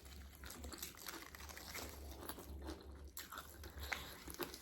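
Crunchy food being bitten and chewed close to the microphone: a run of small, irregular crisp crunches.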